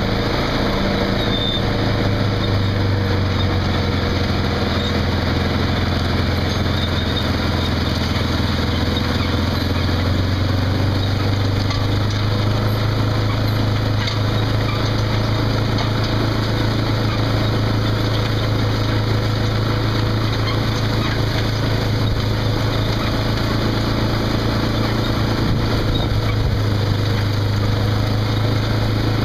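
Case IH Quadtrac tractor's turbocharged diesel engine running steadily, a constant drone with the turbocharger's whistle.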